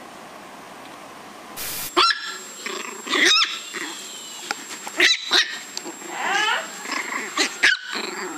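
Small puppy barking: a run of short, high-pitched yaps starting about two seconds in, some with a growl.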